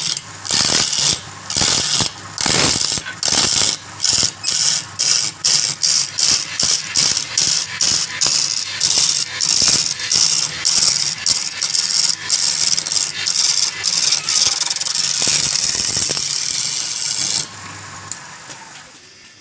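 Turning tool cutting wood spinning on a lathe, a rasping hiss in short repeated strokes. The strokes come faster until they run together into one steady cut, which stops suddenly near the end, and the lathe motor's low hum then dies away.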